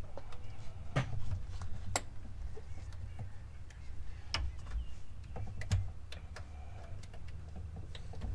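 Light, irregular clicks and taps as the small ignition coil-pack bolts are handled and started by hand, over a steady low rumble.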